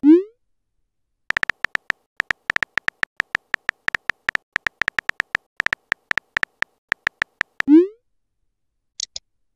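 Texting-app sound effects: a rising "bloop" as a message is sent, then a quick, uneven run of short, same-pitched keyboard tap clicks as a message is typed, about five a second. A second rising "bloop" marks its sending near the end, followed by a brief high double chirp.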